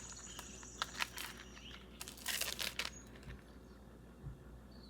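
Plastic packaging crinkling and rustling in short bursts as small items are handled, twice louder: about a second in, and again for about half a second a little past two seconds.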